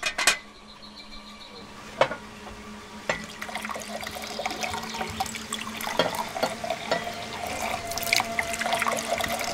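Water running and splashing, growing louder, with scattered small clicks.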